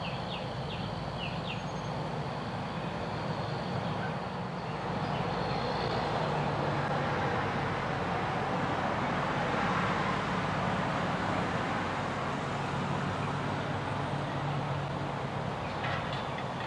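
Road traffic passing close by: truck engines and tyres, including a truck pulling a flatbed trailer. The sound swells to its loudest about halfway through and eases off after.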